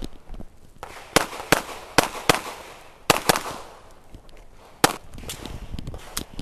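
Springfield XD(M) pistol firing about seven shots, mostly in quick pairs roughly a third of a second apart, each with a short echoing tail, and a final single shot near the end.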